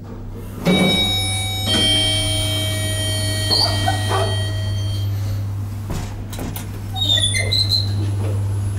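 TH Hissi traction elevator arriving: a two-note chime rings out about a second in and fades over the next few seconds, over a steady low hum, as the doors slide open. A few short knocks follow later.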